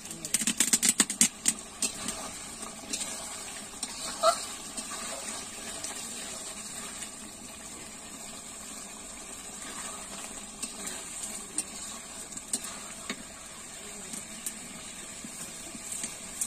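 Chicken curry bubbling and sizzling in a black iron kadai over a wood fire, with a quick run of metallic clicks and scrapes from the ladle stirring in the first second or two, and a few single clicks after.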